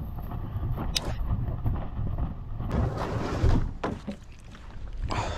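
Wind buffeting an action camera's microphone as an uneven low rumble, with a sharp knock about a second in and a rustling, knocking burst a little past the middle.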